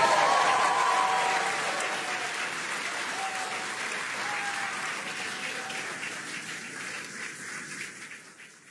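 Crowd applauding and cheering, with a few voiced whoops near the start, loudest at first and fading away over several seconds.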